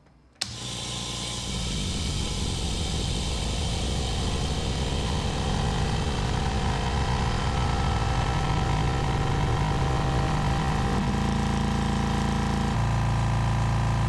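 Husky quiet-series air compressor's electric motor and pump starting up about half a second in, then running steadily as it pumps air into its twin tanks and the pressure builds toward 175 psi. Its sound changes character twice in the last few seconds as the tanks fill.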